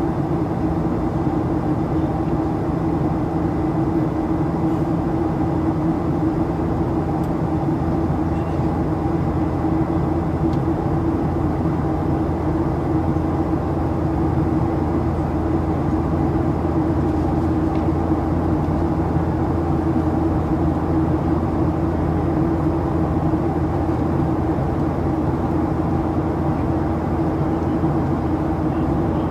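Steady drone inside the cabin of a Boeing 737-800 with CFM56-7B engines: engine and airflow noise with a constant low hum and a few steady tones, unchanging throughout.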